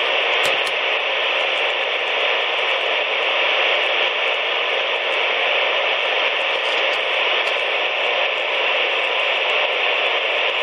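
CB radio tuned to channel 19 (27.185 MHz), with no station coming in, giving steady static hiss from its speaker.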